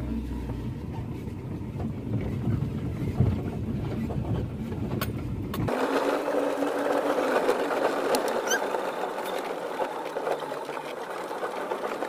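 Vehicle driving along a rough dirt track, heard from inside the cabin: a dense, low-pitched noise of engine and tyres. About six seconds in, the sound changes abruptly. The low noise drops away, leaving a steadier hiss with a faint hum.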